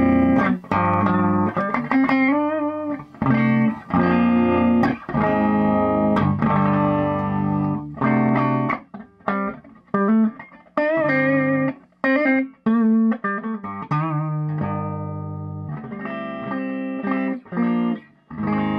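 Electric guitar played through a Bogner Shiva tube guitar amplifier: a run of chords and notes, each struck and left to ring, with short pauses between phrases. This is the test play after the amp's filter capacitors were replaced, and the amp sounds quiet, with no obvious hum.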